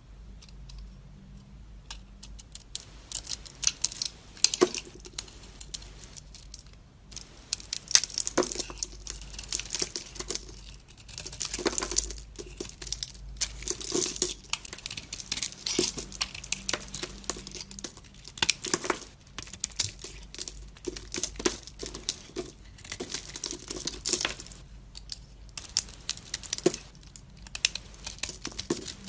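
Dry bar soap being cut with a knife: crisp, crunchy crackling in quick runs of snaps, with short pauses between cuts.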